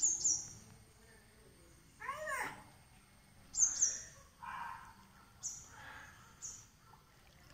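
Birds calling: short, very high chirps that drop in pitch, heard about six times, with one longer call rising and falling in pitch about two seconds in.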